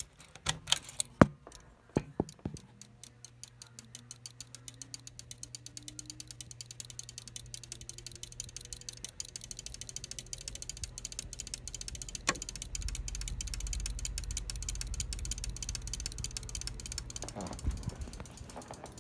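Emerson Northwind ceiling fan starting up on high: a few clicks, then a steady motor hum and a rhythmic ticking that speeds up steadily as the fan comes up to speed, its level rising until well past the middle.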